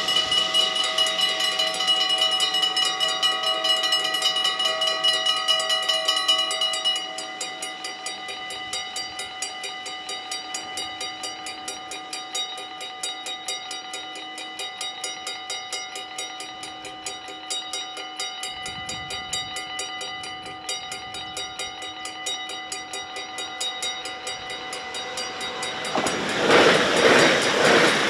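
Dutch level-crossing warning bells ringing fast and loud while the barriers lower. About seven seconds in, once the barriers are down, they drop to a quieter ring. Near the end an electric Sprinter train rushes through the crossing and drowns them out.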